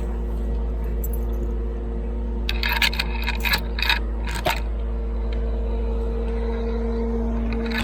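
An engine runs at a steady speed with a constant hum. About three to four and a half seconds in, a cluster of sharp metallic clinks and rattles sounds over it.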